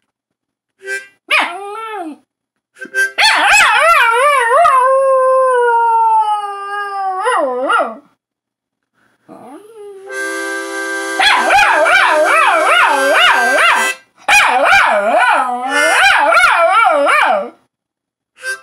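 Terrier howling: a short cry, then a long wavering howl that slides down in pitch. About ten seconds in, a harmonica starts playing steady chords and the dog howls along with it in rising and falling wails.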